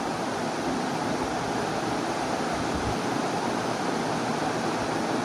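Duck and potato curry sizzling steadily in oil in a frying pan as it is stirred with a wooden spatula, at the frying-down (kosha) stage of cooking.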